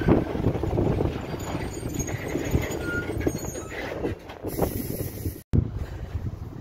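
Loaded open freight wagons carrying logs rolling past, with wheels rumbling and knocking over the rail joints and a brief squeal about three seconds in. The sound cuts off abruptly about five and a half seconds in.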